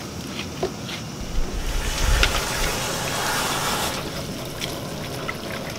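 Cold water poured from a metal kettle onto freshly steamed purple sticky rice in a woven bamboo steamer basket, splashing and trickling through the hot rice for about two and a half seconds from just over a second in. The cold water is poured over so the rice does not overcook.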